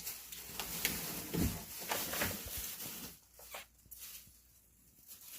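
Plastic bag of sweet potatoes rustling as it is handled, with small clicks and a soft thud about a second and a half in; the rustling fades out after about three seconds.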